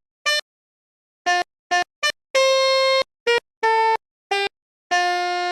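A telolet bus-horn tune played note by note on an instrument app's sampled wind-instrument sound: nine bright, buzzy notes, mostly short, with three held longer, and clean silence between them.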